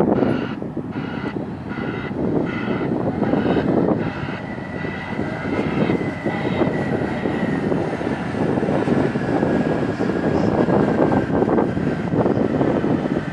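Heavy diesel machinery of a mining excavator and haul dump trucks running hard at work. Through the first half a reversing alarm beeps about twice a second and fades out around seven seconds in.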